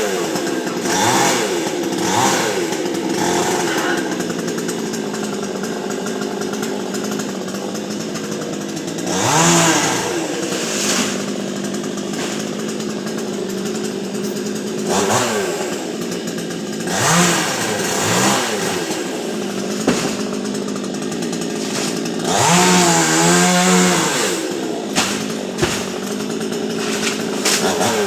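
Chainsaw running steadily at idle and revved up many times in short bursts, with a longer stretch at high revs about three-quarters of the way in, cutting a coconut palm.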